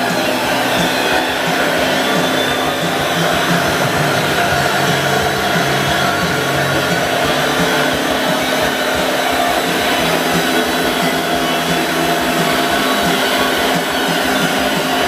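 A small motor running steadily and loudly with a rushing, whirring noise that does not change.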